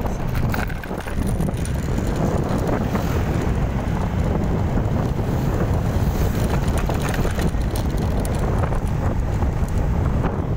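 Wind buffeting the microphone of a phone carried on a moving motorcycle: a steady, loud low rumble of wind noise.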